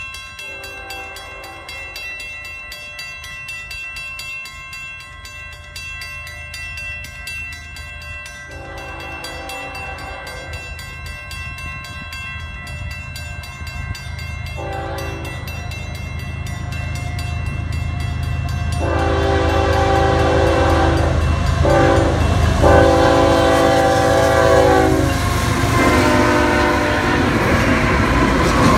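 Canadian National freight train approaching a grade crossing: the lead diesel locomotive's horn sounds a series of blasts, spaced out at first and then longer and louder, over the ringing of the crossing's warning bell. The low rumble of the locomotives grows steadily louder as they reach and pass the crossing near the end.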